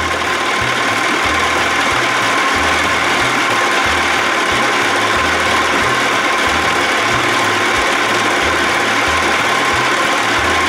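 1979 Evinrude 55 hp two-stroke outboard idling steadily in a water-filled test barrel.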